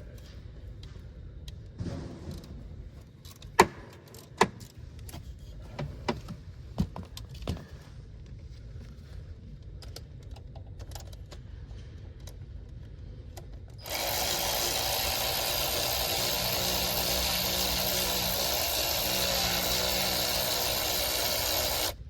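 Several sharp metallic clinks and clacks of tools being handled. About two-thirds of the way in, a loud steady hissing rush starts abruptly, runs for about eight seconds and cuts off suddenly.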